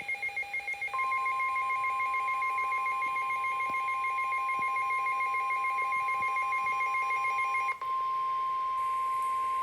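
NOAA Weather Radio's steady 1050 Hz warning alarm tone on a Midland WR-300 weather alert radio, starting about a second in and held to the end. Until near the end it sounds over the receiver's own rapidly pulsing two-pitch alert beeps, which then stop, leaving the single tone.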